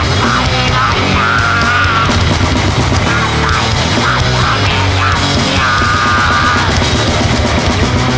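Grindcore/noise band recording playing: a dense, loud, steady wall of distorted sound.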